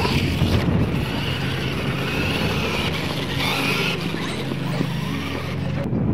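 Radio-controlled scale monster trucks racing across a dirt track and over ramps, their motors whining steadily.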